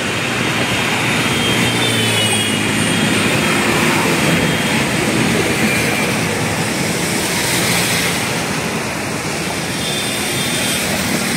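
Steady noise of heavy road traffic on a wet highway flyover: engines droning under the hiss of tyres on the rain-soaked road.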